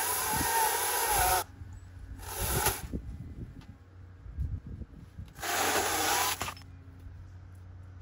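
Palm fronds being cut with a saw: three separate bursts of rasping cutting noise, the first the longest, with a quieter gap after each.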